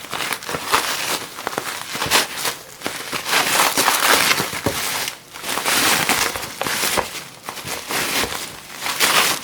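Plastic bubble wrap being crinkled, crumpled and pulled off a parcel by hand, in irregular crackling bursts.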